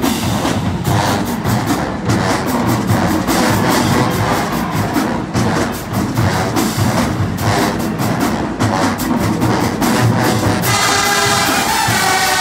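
Live HBCU-style marching band: the drumline plays a driving percussion cadence, and the brass section comes in with sustained chords near the end.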